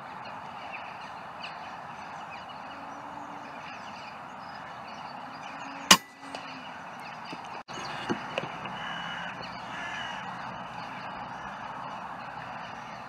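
A single shot from a .22 Daystate Delta Wolf pre-charged pneumatic air rifle, a sharp crack about six seconds in, over a steady outdoor background. A couple of faint clicks follow about two seconds later.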